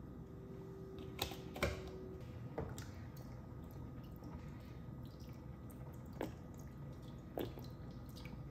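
Cooking oil and then soy sauce poured from plastic bottles into an empty frying pan: a few sharp clicks and drip-like taps, scattered through the pour, over a low steady hum.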